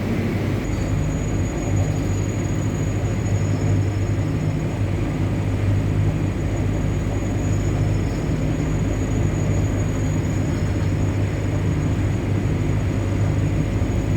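WAG-9 electric locomotive running, heard from on board: a steady low rumble with a constant hum and a faint high whine.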